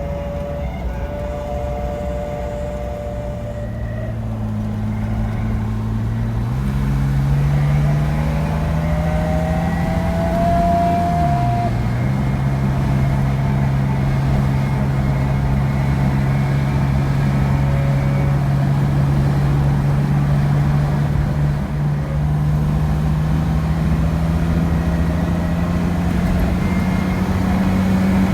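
BMW 635CSi (E24) driving, with a steady low drone and a fainter whine that climbs in pitch about eight to eleven seconds in. It is the noise of a worn driveshaft center support bearing, which changes with road speed rather than engine revs.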